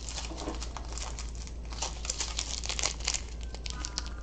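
Small plastic zip-lock bags of resin diamond painting drills being picked up and handled, the thin plastic crinkling in quick, irregular rustles throughout.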